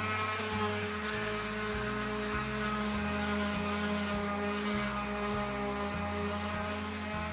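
Handheld random orbital sander running steadily with a constant motor hum and hiss, its pad rubbing over the carved wooden horse body.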